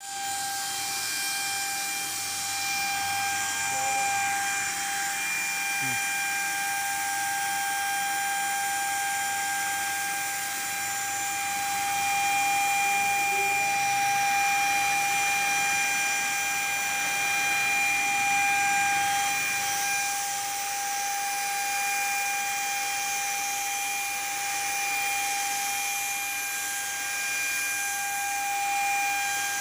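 Floor-based HVLP paint sprayer (iBELL SG80-27) running steadily, its turbine giving a high, even whine, with air hissing from the spray gun as it sprays paint.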